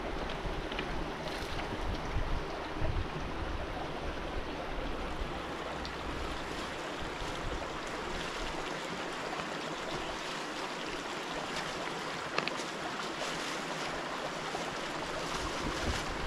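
Steady rush of flowing river water, with wind rumbling on the microphone during roughly the first half.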